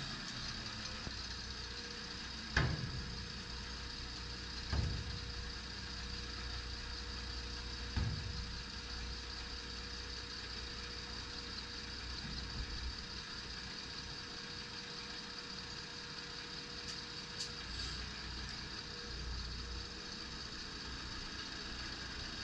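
Volvo FE320 dump truck's six-cylinder diesel idling steadily while the tipper body is lowered, with three clunks about 2.5, 5 and 8 seconds in as the body comes down onto the chassis.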